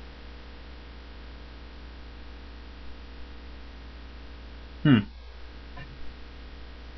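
Steady low electrical mains hum, with one short falling vocal sound from a person about five seconds in.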